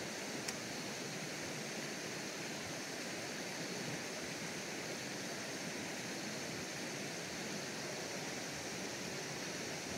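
Steady rush of flowing river water, an even hiss that does not change, with one short sharp click about half a second in.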